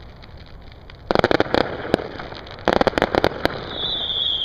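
Fireworks going off: two volleys of rapid crackling reports, the first about a second in and the second about a second and a half later. A high, steady whistle follows near the end.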